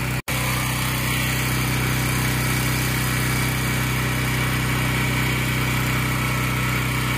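Engine of a pressure washer running steadily, a constant engine hum under a broad hiss.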